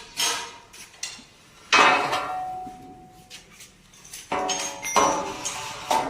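Metal parts of a power loom clanking and ringing as it is taken apart: about five sharp metallic knocks, the loudest a bit under two seconds in, and a quick run of them near the end.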